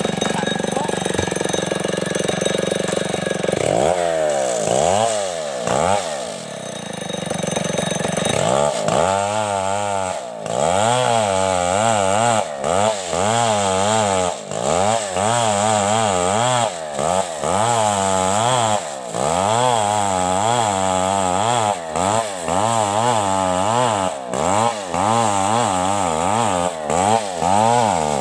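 Large STIHL chainsaw running under load as it rips lengthwise through a coconut log. The engine note is steady at first, then wavers rapidly up and down from about four seconds in as the saw works along the cut, with a few brief dips.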